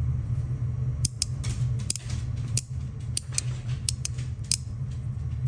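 Heavy metal magnetic fidget, a knockoff of the AC/EDC donut, being worked by hand. Its magnets snap it into place with about a dozen sharp, irregular clicks starting about a second in.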